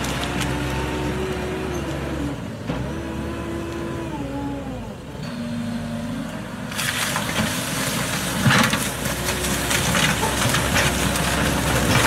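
Off-road vehicle engine running, its pitch stepping down and back up with the throttle. About seven seconds in, a loud gritty crunching of tyres over rough ground joins it.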